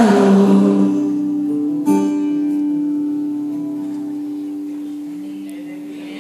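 Live band's final chord ringing out and slowly fading, struck again once about two seconds in.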